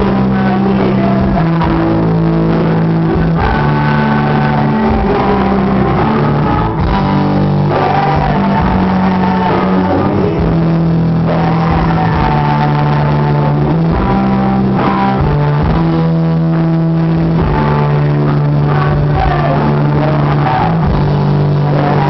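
Live rock band playing loudly, with guitars, a bass line changing note every second or two, and a singer's vocals on top.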